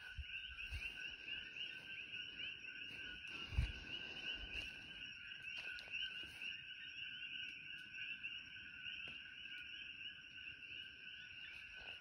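Dense, unbroken evening chorus of many small calling frogs, a constant layer of rapid chirps. A soft low thump of phone handling or footsteps comes about three and a half seconds in.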